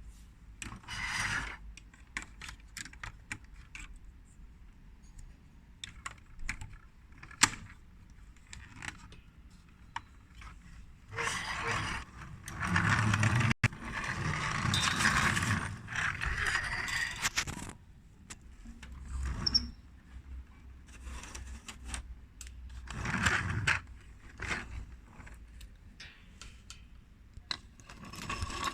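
Toy vehicle parts being handled and fitted together: scattered light clicks, with bursts of rattling and scraping, the longest and loudest a stretch of several seconds about halfway through.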